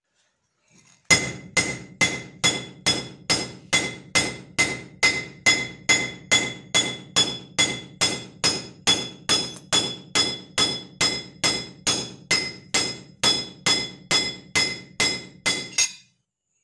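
Hand hammer striking a steel cleaver blade laid on a steel block, about two and a half blows a second at an even pace, each with a bright metallic ring. The blows are hammering a dimpled texture into the blade's surface. They start about a second in and stop just before the end.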